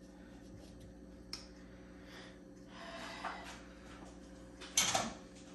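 Quiet kitchen handling sounds over a faint steady hum: a light click about a second in, some soft rustling and scraping, and one short louder noise near the end.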